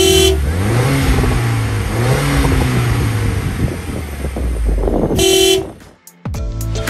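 Mini Cooper S 1.6-litre turbocharged four-cylinder engine, with a stage 1 remap and an aftermarket AEM intake, revved twice at a standstill and heard at the exhaust. Each time the pitch climbs, holds briefly and drops back.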